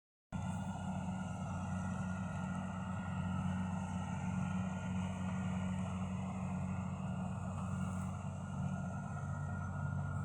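An engine running steadily at constant speed, a low even hum, starting just after a brief dropout at the very beginning.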